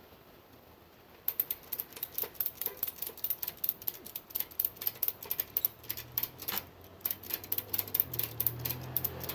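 Ratchet strap being cranked tight around a motorcycle shock's coil spring to compress it: a rapid run of sharp ratchet clicks, about four or five a second, starting about a second in.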